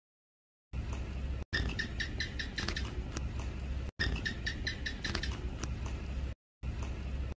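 House gecko (Hemidactylus) calling: quick series of short, sharp chirps at about six a second, each series starting loud and fading away, heard twice over a low steady hum. The sound drops out abruptly in short gaps between them.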